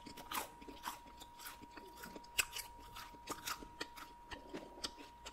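Chewing a mouthful of pizza close to the microphone: soft crunches and mouth clicks, irregular at about two a second.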